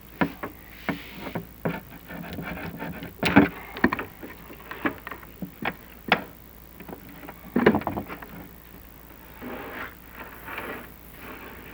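Chimney inspection camera knocking and scraping against the walls of a clay-tiled flue as it is worked down the chimney: irregular knocks and short scrapes, the loudest about a third of the way in and again about two thirds in.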